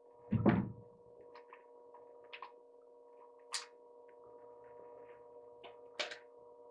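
Steady electrical hum in the room, with a few scattered clicks and a short louder knock about half a second in.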